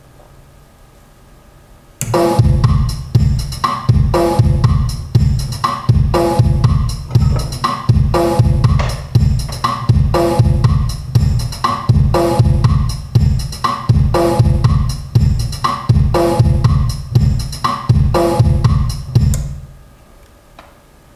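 Drum-heavy music with a steady beat played through the amplifier under test. It starts suddenly about two seconds in and cuts off shortly before the end. That is the speaker protection disconnecting the speaker once the soldering iron has heated the temperature switch past its limit.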